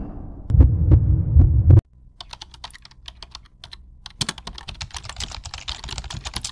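Animated intro sound effects: deep thumping pulses for about the first two seconds, stopping suddenly, then a quieter run of rapid, irregular clicks and crackles.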